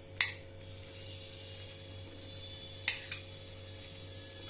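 A cooking spoon stirring okra through a thick masala gravy in a pan, knocking sharply against the pan twice, about a quarter second in and near three seconds, over a faint sizzle and a steady low hum.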